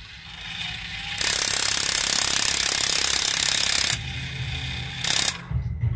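Gramophone spring motor let go under the tension of its wound spring, its gear train running free with a fast, loud rattle for about three seconds before stopping abruptly, then a second short burst near the end.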